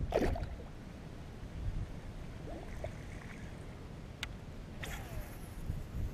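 A largemouth bass dropped back into the lake beside a kayak, a brief splash right at the start. Then low, steady wind and water noise, with two sharp clicks about four and five seconds in.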